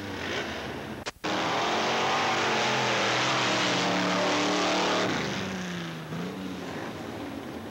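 Off-road race vehicle engine running hard under load, then dropping in pitch and fading about five seconds in as it passes and backs off. A brief cut-out of all sound about a second in.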